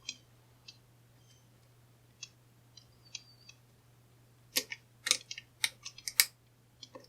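Silver Bullet disc detainer pick turning the discs inside a stainless steel Fu Volante disc detainer padlock: small scattered metallic clicks and scrapes, a few in the first half, then a quicker run of them about four and a half to six seconds in. The lock is gritty inside.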